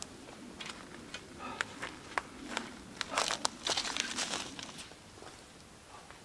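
Footsteps crunching through dry leaves and twigs on a forest floor, a run of crisp crackles that is loudest from about three to four and a half seconds in.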